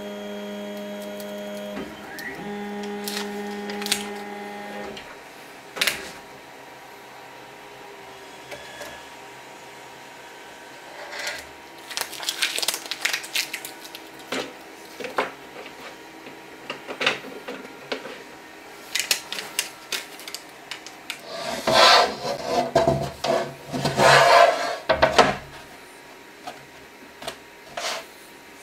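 Adhesive tape being worked by hand: peeled, torn and pressed down, in scattered crackles and clicks with a louder stretch of rustling crackle past the middle. A steady hum of several pitches runs through the first five seconds.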